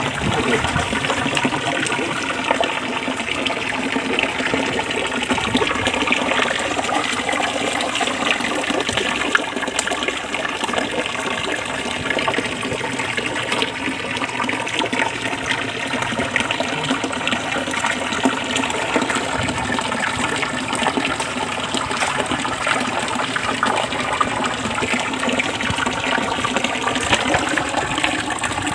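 Water gushing steadily, flecked with small splashes.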